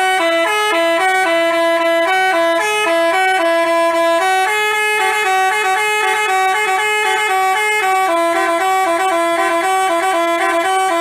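Bus telolet horn of the Basuri type, a multi-tone electric horn, playing a continuous melody of quickly changing notes in two voices.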